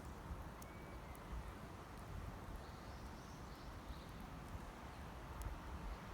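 Wood campfire crackling with sparse sharp pops over a steady low rumble; faint bird chirps around the middle.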